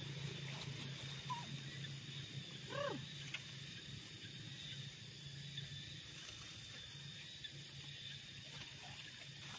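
A steady low hum with a faint steady high tone above it, and one short rising-then-falling animal call about three seconds in, after a smaller chirp a second or so earlier.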